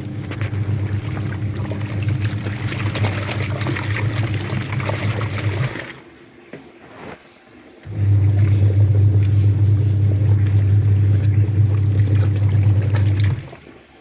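Haier washing machine taking in water: a steady electrical hum under a rush of water, which stops about six seconds in. About two seconds later a louder hum starts again and runs until just before the end.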